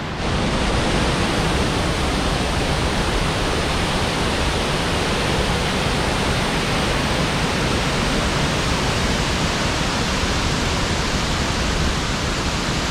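Twin Falls in flood, a loud, steady rush of falling water at very high flow after heavy rain.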